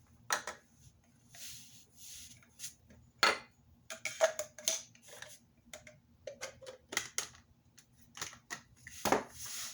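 Metal pistol parts handled by hand: a run of small clicks, clinks and brief scrapes from the Glock's barrels and slide being picked up and set down, coming faster in the second half.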